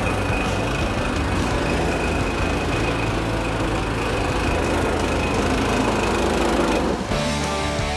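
Steady loud hissing roar of a gas blowtorch and compressed-air blow gun burning and blasting carbon out of a Stihl strimmer's clogged exhaust spark-arrestor screen, with a high whistle through most of it. The roar cuts off about seven seconds in, leaving music.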